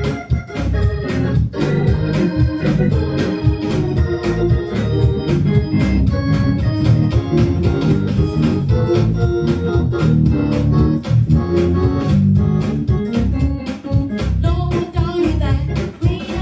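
Gospel-style organ music, sustained chords over a strong bass with a steady beat.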